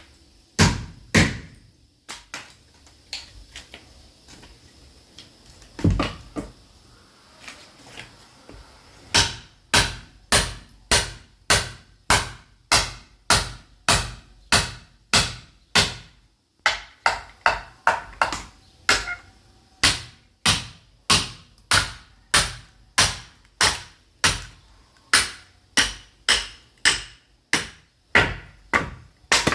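Sledgehammer blows splitting firewood with a chisel: a quick run of sharp strikes, then a lull with a few lighter knocks and one heavy, deep thud, then steady, evenly paced strikes at about two a second.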